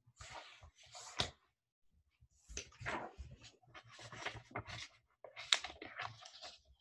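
Rustling and handling noises close to the microphone, in four or so irregular bursts with a few sharp clicks.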